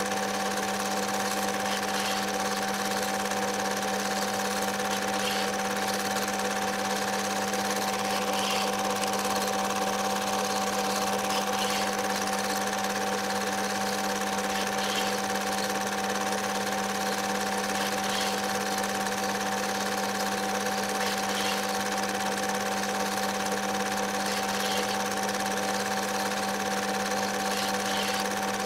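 Film projector running steadily: a constant mechanical whir with a steady hum underneath.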